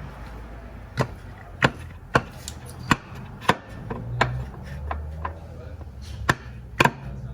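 Hammer blows on a new front drive axle, driving its splined end home until it seats: about seven sharp metallic strikes, five in quick succession, then a pause and two more near the end.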